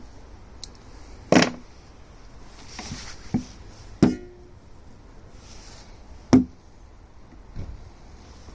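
Handling noises while a new oil filter is being primed with oil: three sharp clunks, the middle one ringing briefly, with fainter knocks and rustles between them.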